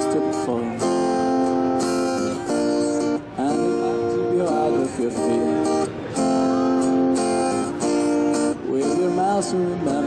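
Acoustic guitar music, strummed chords that ring on, with a fresh strum every second or two.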